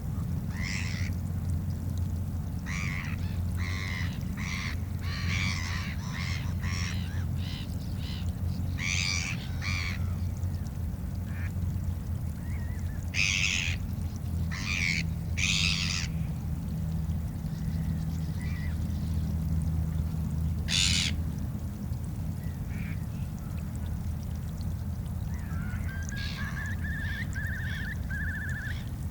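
Black-headed gulls calling: flurries of short, harsh calls, loudest about midway through. A steady low rumble runs underneath.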